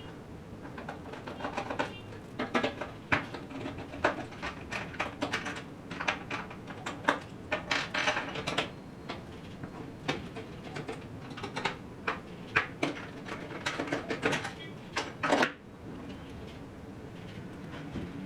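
Irregular clicks, taps and light rattles of a screwdriver and screws being undone as the plastic CPU-cooler retention brackets are taken off an AM4 motherboard. They stop abruptly about fifteen seconds in, leaving a steady hiss.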